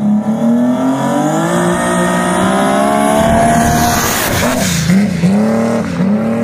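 Audi-engined dragster accelerating down the drag strip. Its engine note climbs in pitch for about three seconds as it closes in and passes, loudest about four seconds in, then dips in pitch a few times as it runs away.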